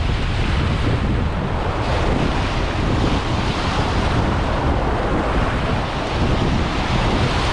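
Sea surf washing over shoreline rocks, with heavy wind noise on the microphone.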